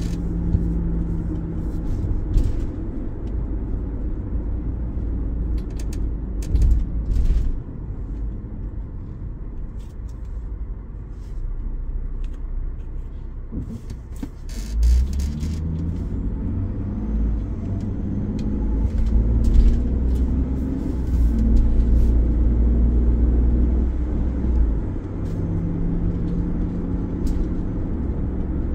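Ford-based camper van driving on city roads: a steady low rumble of engine and road noise with a wavering engine hum that swells now and then, and scattered short knocks and rattles.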